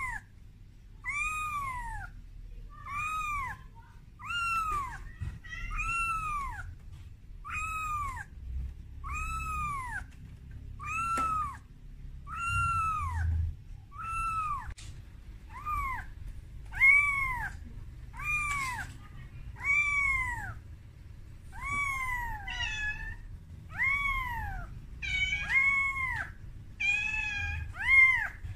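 A young kitten meowing over and over, about one high, arching cry a second, each rising then falling in pitch. These are a frightened kitten's cries calling for its mother.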